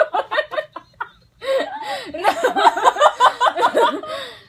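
Loud, rapid laughter in quick repeated ha-ha pulses, breaking off for a moment about a second in and then starting again, longer.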